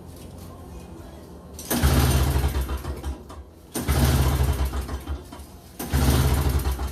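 Toro CCR2450's 141cc R-Tek two-stroke engine being cranked in three attempts of about two seconds each, starting a little under two seconds in, without settling into a steady run: it will not start properly, which the mechanic then traces to the spark plug.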